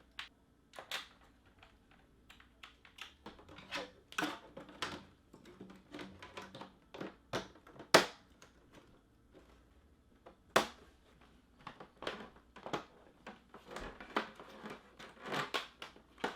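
Hard plastic parts of a robot vacuum's self-emptying dustbin base being handled: irregular clicks, taps and rustling, with two sharp snaps, one about halfway through and another a couple of seconds later.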